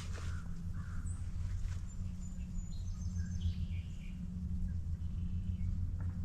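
Songbirds giving a few short, high chirps and whistles, mostly in the first half, over a steady low hum.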